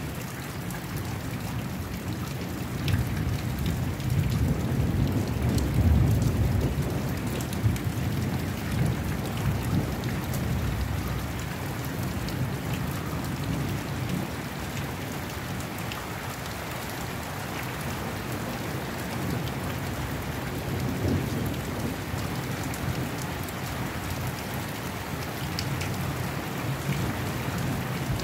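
Steady rain falling on the ground and yard surfaces, with a low thunder rumble that swells a few seconds in, is loudest about six seconds in and fades by about eleven seconds, then a shorter, weaker rumble about twenty-one seconds in.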